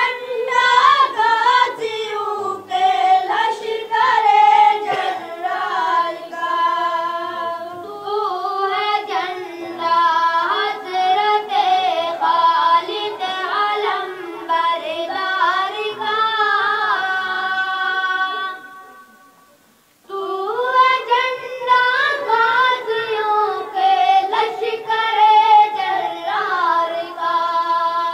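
Boys singing an Urdu song together with no instruments, in drawn-out, held notes. The singing breaks off for about two seconds roughly two-thirds of the way through, then resumes.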